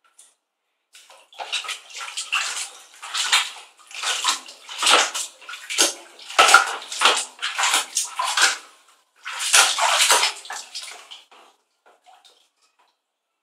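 Water splashing and sloshing in a plastic baby bathtub as a toddler's hands swish plastic toys through it. The splashes come irregularly from about a second in and die away near the end.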